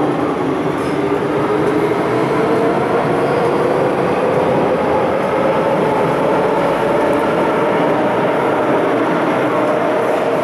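MTR M-Train electric multiple unit running through an underground station platform without stopping. The wheels and running gear give a steady loud rumble, with a motor hum that drifts slightly up and down in pitch.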